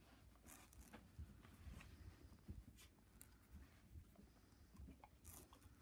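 Near silence: faint scattered rustles and soft clicks in a small room.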